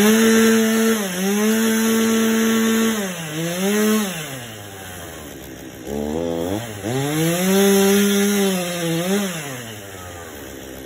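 Two-stroke chainsaw revved to full throttle and cutting into a tree trunk in two bursts, the first held about four seconds and the second about three, each falling back toward idle.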